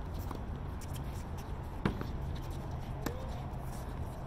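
Tennis ball being hit and bouncing during a doubles rally on a hard court: a sharp pop about two seconds in and a fainter one about a second later, over a steady low hum.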